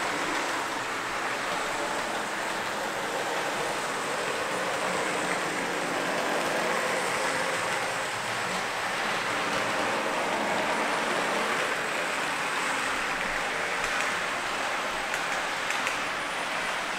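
H0-scale model train, a locomotive hauling DR double-deck coaches, running along the track: a steady rolling rumble of wheels on rails with motor hum, and a few faint clicks near the end.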